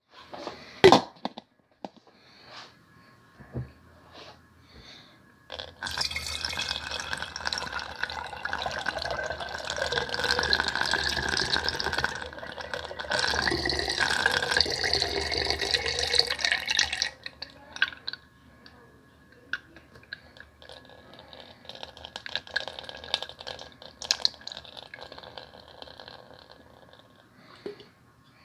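Homemade apple cider vinegar poured from a glass Mason jar through a plastic funnel into another Mason jar: a steady splashing pour for about ten seconds, as the finished vinegar is strained off the apple solids. It then thins to a trickle and drips with small knocks. There is one sharp knock about a second in.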